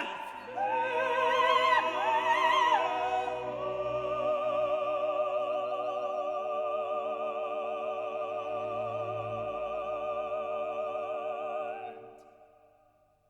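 Background classical music: an operatic voice with orchestra, singing a few short notes, then one long held note with vibrato that fades out near the end.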